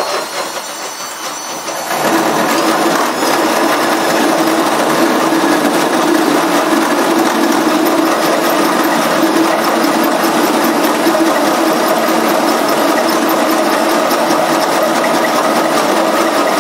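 Hand drill driving a large hole saw through a car's floor panel, the motor running steadily under load with a constant hum. It starts lighter and bites in harder, growing louder, about two seconds in.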